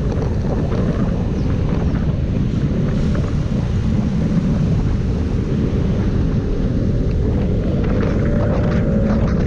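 Steady heavy wind rumble on the microphone of a moving SYM MMBCU scooter, with the scooter's engine tone showing faintly near the end.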